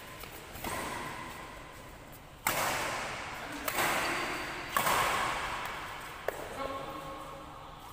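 Badminton rally: rackets striking the shuttlecock five times, a second or so apart, each sharp crack followed by a long echo in a large indoor hall.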